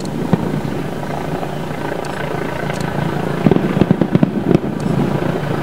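Distant fireworks display: a steady low rumble, then a dense run of booms and crackles starting about three and a half seconds in.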